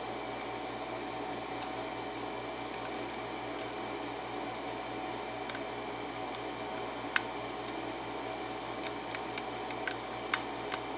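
Irregular faint metallic clicks of a lock pick working the pin tumblers of a Schlage key-in-knob cylinder, a few sharper ticks among them, as pins are lifted and set. A steady low hum runs underneath.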